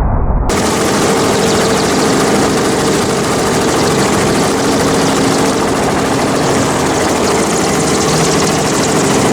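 Helicopter running steadily: a constant hum of several steady tones over a broad rushing noise. In the first half-second a duller low rumble is heard before a cut.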